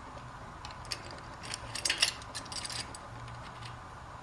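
Scattered light clicks and clinks of small metal hardware being handled, a bolt with its washers and spacer, mostly in a cluster from about a second and a half to near three seconds in, over a faint steady hum.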